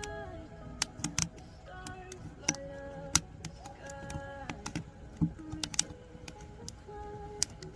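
Firewood crackling in a G-Stove wood-burning camp stove: sharp, irregular snaps and pops, a few in quick clusters, over soft background music.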